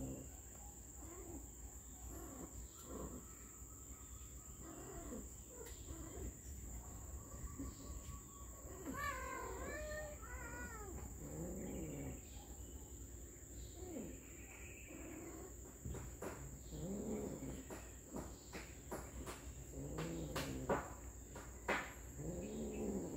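Cats mating, yowling and growling: repeated low, drawn-out moans that rise and fall, with a higher, wavering yowl about nine seconds in.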